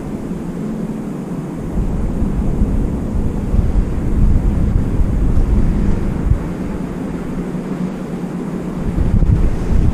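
Wind buffeting the microphone: a loud, gusty low rumble that eases off briefly twice.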